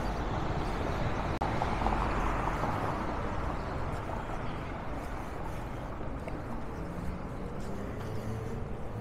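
Street traffic: vehicles passing, with one swelling louder about two seconds in, then a steady wash of engine and tyre noise.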